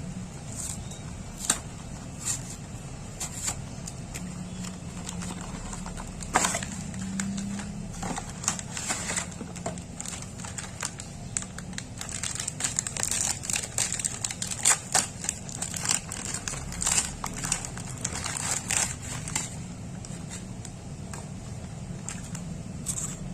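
Plastic snack packaging being handled: crinkling and rustling with scattered sharp clicks, busiest in the middle stretch, over a steady low background hum.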